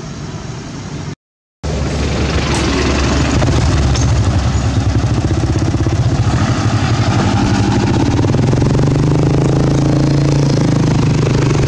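An engine running steadily, cut off completely for a moment about a second in and louder after the gap.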